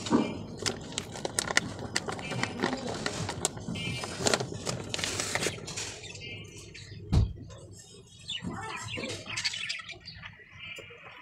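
Vermicompost poured from a plastic packet into a plastic bowl: crinkling of the packet and a pattering rustle of falling crumbs for about six seconds, then a single thump about seven seconds in, after which it goes quieter.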